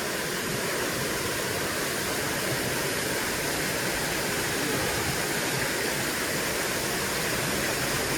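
Water rushing steadily over a spillway, an even roar with no breaks.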